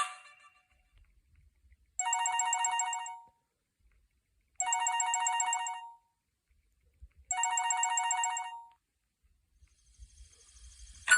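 A preloaded ringtone on a Huawei U5310 phone, a telephone-bell style ring: three trilling rings, each just over a second long, with about a second and a half of silence between them.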